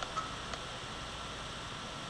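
Steady background hiss, with a few faint short squeaks or clicks in the first half second.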